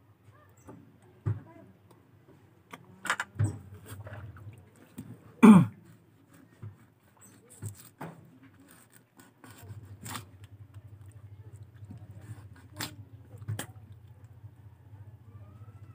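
Wet handling of raw fish: scattered small clicks and taps as the fish is pulled apart and a knife works it against a plate. About five and a half seconds in comes one short, loud throaty sound that falls in pitch, and a faint low hum sets in near the middle.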